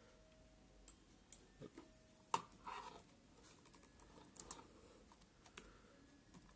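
Faint, irregular key clicks from an HP laptop keyboard as a terminal command is typed, a few keystrokes at a time with short pauses between.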